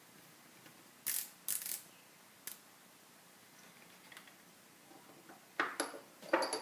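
Small sharp clicks and scrapes of a screwdriver and small screws being handled and driven into the laptop's screen frame: a few brief clicks in the first half, then a louder cluster of clicks near the end.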